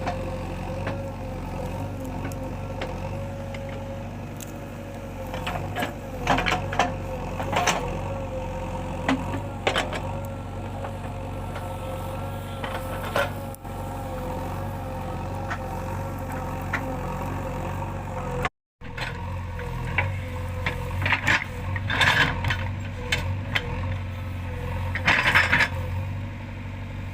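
A JCB earthmover's diesel engine running steadily under load, with a steady whine over it and scattered clanks and knocks, some in quick clusters. After a brief dropout about two-thirds of the way through, the whine is gone and the engine and knocks carry on.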